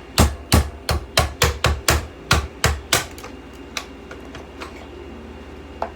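About a dozen sharp knocks in quick succession, roughly four a second, over the first three seconds, then three scattered knocks.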